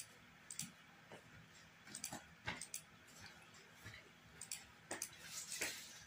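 A dozen or so faint, irregular clicks as moves are played rapidly in an online bullet chess game, over a low hiss.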